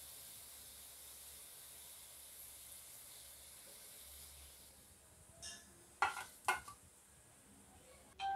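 Hot oil sizzling faintly as deep-fried raw-banana kofta balls are lifted out with a slotted spoon; the sizzle fades out about halfway through. A few sharp knocks follow around six seconds in, and a short ringing tone starts near the end.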